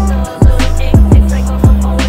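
Background music with a steady beat: a kick drum about twice a second over a sustained bass line.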